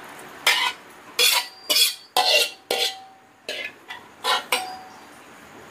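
Metal spatula scraping and knocking against a metal wok as cooked stir-fried vegetables are scraped out into a metal bowl. About eight short scrapes come in quick succession, one with a brief metallic ring.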